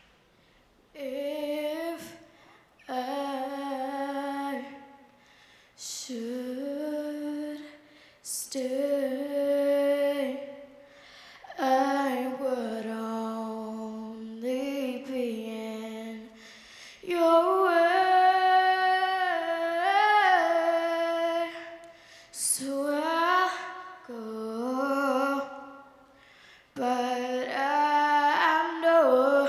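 A young girl singing solo and unaccompanied into a handheld microphone, in held, sustained phrases with short pauses for breath between them.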